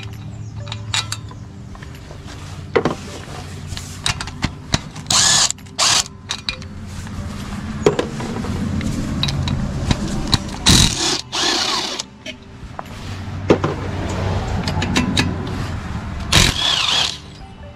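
Cordless drill/driver backing out the valve-cover bolts on a V-twin OHV mower engine, its motor running in a few long spells, with sharp metal clicks and knocks in between.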